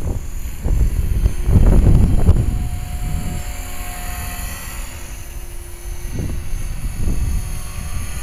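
HK-450 electric RC helicopter flying overhead, its rotor and motor giving a steady whine. Gusts of wind rumble on the microphone, strongest about two seconds in.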